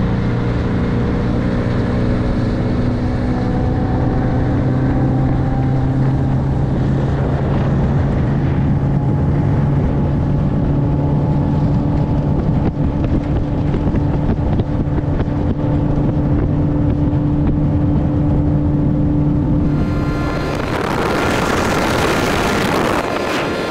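Outboard motor running steadily at speed, pushing the boat across the water. About twenty seconds in the engine tone gives way to a loud rushing hiss.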